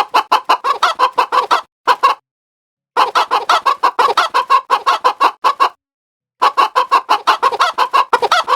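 Rapid, evenly repeated clucking, about seven clucks a second, in edited bursts that cut off abruptly into dead silence: around two seconds in and again just after five and a half seconds.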